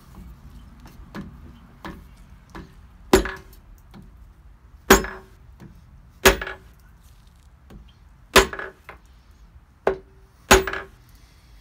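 Rubber mallet knocking on a 1971 VW Super Beetle engine case: about five hard knocks one to two seconds apart, with a few lighter taps between, each followed by a short ring from the case. The blows are meant to break the case halves loose from each other.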